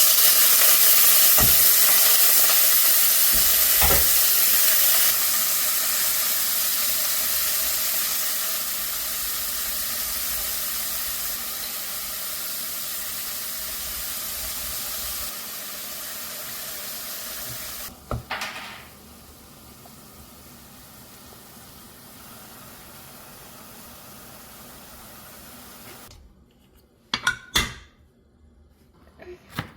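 Food sizzling in a hot pan, a loud steady hiss that grows gradually quieter and falls away about eighteen seconds in, leaving a faint hiss, with a few sharp clicks near the end.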